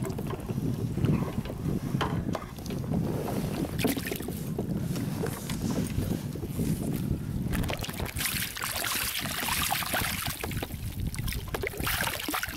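Wind buffeting the microphone and water lapping against a kayak. From about eight seconds in there is loud splashing, as a hooked rainbow trout thrashes at the surface and is swept into a landing net.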